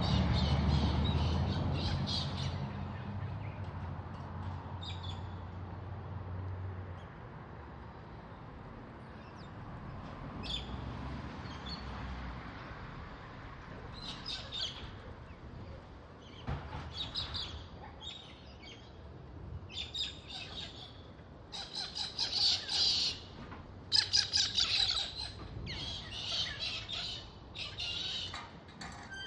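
Galahs squawking: short, harsh calls, scattered at first and coming thick and fast in the last ten seconds. A low rumble runs under the first several seconds.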